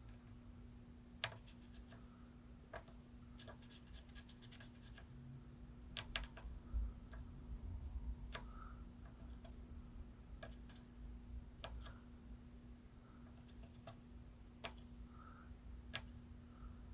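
Faint, irregular clicks and light scratches of small metal hand tools working on a PS5 console's HDMI port area during soldering repair, over a steady low hum.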